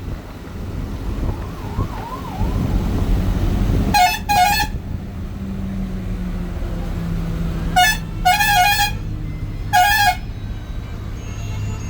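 Bus horn sounding in three bursts of short, rapid, high-pitched toots, about 4, 8 and 10 seconds in, over the steady low drone of the bus engine.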